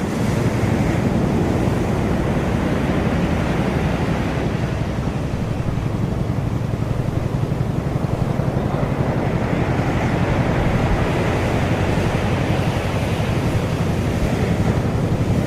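Ocean surf washing on a beach, a steady rushing with slow swells, under heavy low rumble from wind buffeting the microphone.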